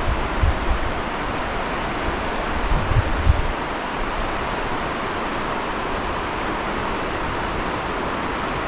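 Steady rush of mountain-stream water, with low wind buffeting on the microphone during the first few seconds.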